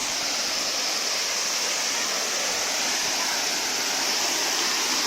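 Steady rushing and splashing of a waterfall with little water in it, an even hiss of falling water.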